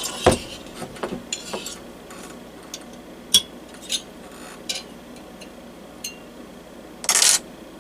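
Scattered light clicks and taps of a diesel heater's plastic and metal parts being handled while its clipped-in surface temperature sensor is worked loose, with a short scraping rush about seven seconds in.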